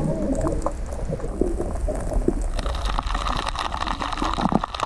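Underwater audio from an action camera's housing: a muffled, steady wash of water noise with a low rumble and many scattered small clicks and crackles. About halfway through it turns brighter and hissier.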